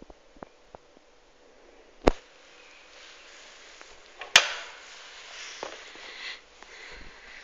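Classroom door being opened: a sharp knock about two seconds in, then a louder click of the latch as the lever handle is worked and the door opens, followed by a hiss of handling noise with a few small knocks.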